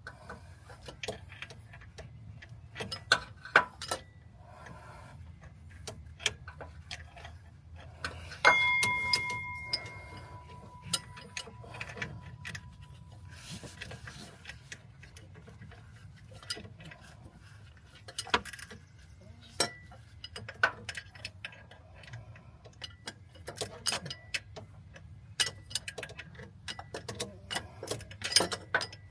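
Hand tools working on metal engine parts: irregular clicks and taps, with one loud metallic clang about eight seconds in that rings on briefly.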